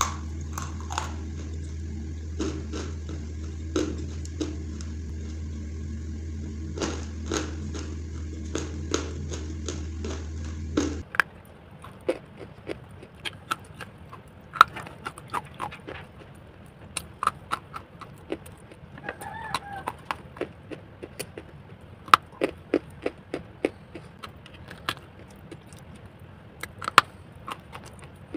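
Close-miked biting and crunching of dry Hyderabadi khadi clay chunks: a run of sharp, irregular crisp crunches. For about the first eleven seconds a steady low hum runs under the bites. After that the hum drops away and the crunches stand out over a quieter background.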